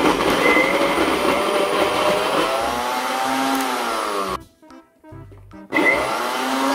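Countertop blender motor running, blending chunks of carrot and apple with water. Its pitch sags and rises as it works through the pieces. It is switched off about four seconds in and switched back on about a second and a half later.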